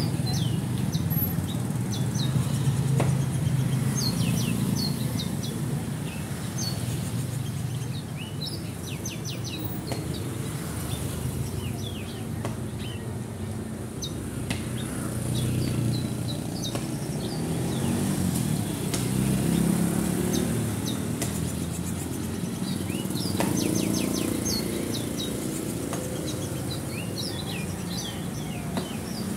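Caged songbird singing, repeated phrases of quick, high, sharply sweeping notes every few seconds, over a steady rumble of street traffic and motorcycles.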